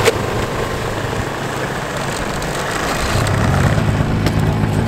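Snowmobile engines running steadily, with a deeper engine hum getting stronger about three seconds in.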